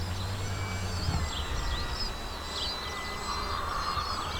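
Outdoor ambience: wind buffeting the microphone, many small birds chirping, and a faint steady high whine from a model plane's electric motor in flight.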